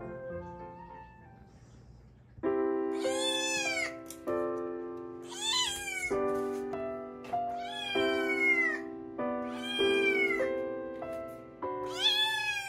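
A munchkin kitten meowing five times, each meow rising and then falling in pitch, over background music of sustained chords that starts about two seconds in.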